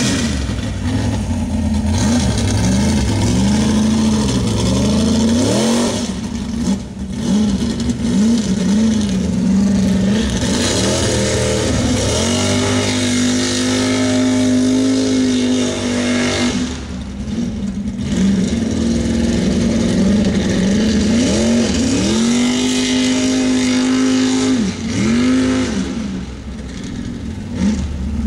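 Lifted Ford pickup mud truck's engine revving hard and repeatedly, its pitch climbing and falling again and again, sometimes held high for several seconds, with a steady hiss of mud and water thrown by the spinning tires.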